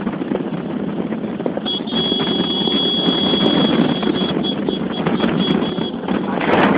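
Motorcycles running at road speed with wind buffeting the microphone. A steady high-pitched tone comes in about two seconds in and breaks into short beeps near the end.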